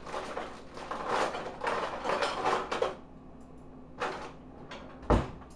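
Clattering of kitchen items being moved about while searching a cupboard, for about three seconds, then two sharp knocks about a second apart, the second louder.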